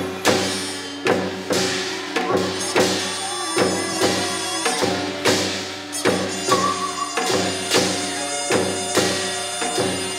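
Korean traditional shamanic ritual music: a sustained wind-instrument melody over regular percussion beats, a little over one and a half a second.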